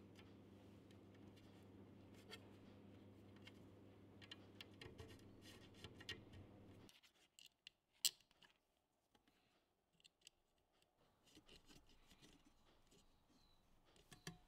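Faint small clicks and taps of hands handling a plastic cable gland and wires, with one sharper click about eight seconds in. A low steady hum runs under the first half and cuts off suddenly about seven seconds in.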